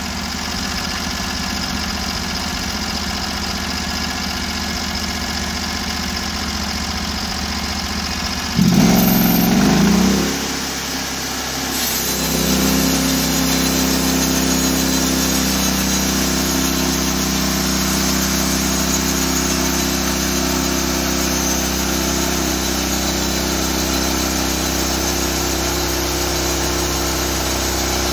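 Norwood portable bandsaw mill's gas engine running at a low, steady speed, then revved up about nine seconds in, which is the loudest moment. From about twelve seconds the mill runs steadily at higher speed as the band blade saws through a log.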